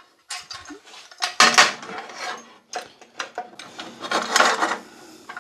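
Metal rip fence of a Sip 14-inch bandsaw being fitted onto the table's front rail: irregular clattering and scraping of metal on metal as it is slid along and clamped down.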